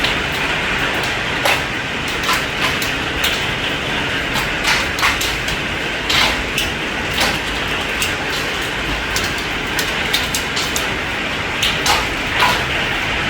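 Heavy rain with hail starting: a steady rain hiss with hailstones striking hard surfaces as irregular sharp knocks, a few a second.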